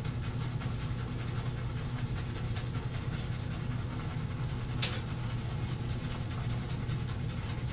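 Boar-bristle shaving brush (Semogue 830) swirled quickly and continuously on a hard puck of Mitchell's Wool Fat soap in a ceramic bowl, loading the brush, over a steady low hum.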